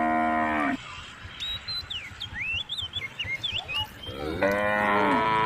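Cows mooing: one long moo ends under a second in, and another starts a little after four seconds in and carries on past the end. Small birds chirp in the gap between the calls.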